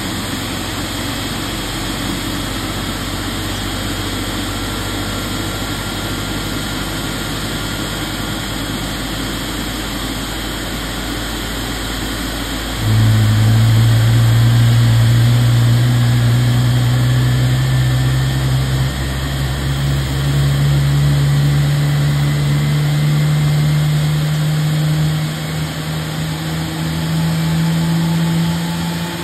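GE90 high-bypass turbofan on a Boeing 777 starting up. The pneumatic starter turns the engine with a steady rush and a faint, slowly rising whine. About halfway through the sound abruptly gets louder, with a low drone that climbs slowly in pitch as the engine spools up.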